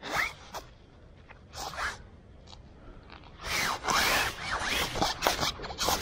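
Rustling, rasping swishes: a few short ones in the first two seconds, then a denser, louder run through the second half.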